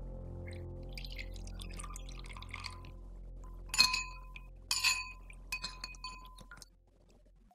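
Metal spoon stirring a thin sauce in a glass bowl: soft scraping and swirling, then several sharp ringing clinks of the spoon against the glass in the second half.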